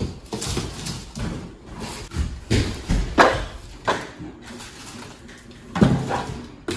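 Cardboard packaging and plastic-wrapped food processor parts being handled and lifted out of the box: irregular rustles, scrapes and light knocks.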